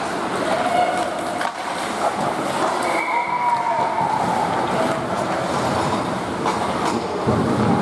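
Ice hockey skates scraping and carving the ice during play, with a few sharp stick-and-puck clacks and faint distant shouts in the rink.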